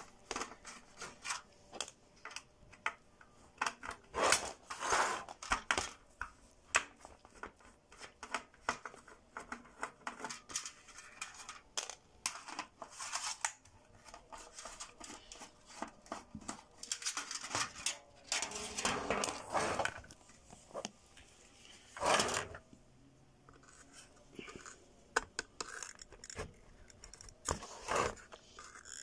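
Screws being undone with a screwdriver on the metal housing of an LED floodlight, and its thin aluminium reflector being handled and lifted out. Irregular metallic clicks, scrapes and rattles, with louder bursts about 4 seconds in and again around 18 to 22 seconds.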